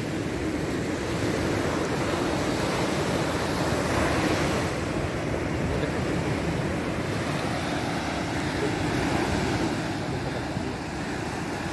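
Steady wash of waves with wind buffeting the microphone, swelling slightly about four seconds in.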